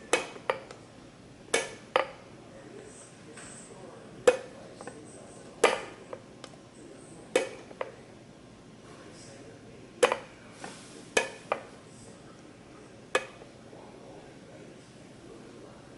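Irregular sharp clicks and taps of a small screwdriver against the metal and plastic of a recessed LED light fixture as its plastic piece is pried at, about a dozen scattered knocks.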